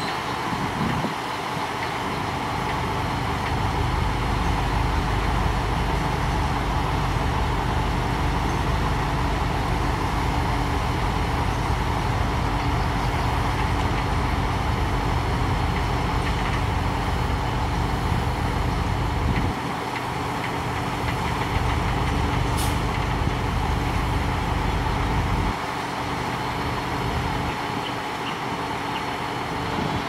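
Heavy diesel engine of a dump truck running steadily under load as its hydraulic hoist tips the bed, with the bulldozer's diesel running alongside. The deep rumble eases off briefly about two-thirds of the way in and drops again near the end, and a single sharp click comes about three-quarters through.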